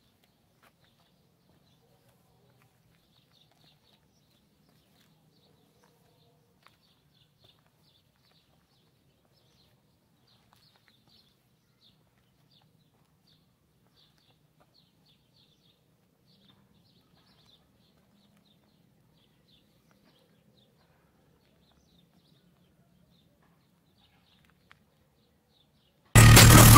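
Faint birds chirping over a low hum, close to silence. Near the end, loud bass-heavy hip hop starts abruptly from a car audio system's subwoofers.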